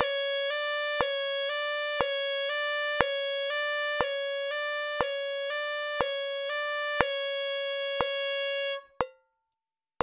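Tenor saxophone playing a high palm-key exercise at a slow, even tempo. It plays eighth notes that alternate between high D-sharp and the neighbouring palm-key note, with a metronome clicking once a second. The line ends on a held high D-sharp that cuts off about nine seconds in, and the clicks carry on.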